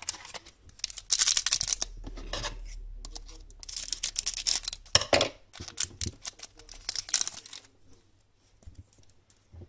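Foil wrapper of an Upper Deck Black Diamond hockey card pack crinkling and tearing as it is opened, in three bursts of rustling.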